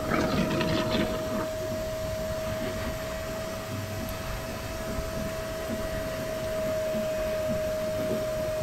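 An old vacuum cleaner runs steadily with a constant whine, drawing negative pressure on the excavator's hydraulic tank to keep oil from leaking out of the opened lines. In the first second or so there are metallic clicks and clinks as hydraulic fittings and caps are handled.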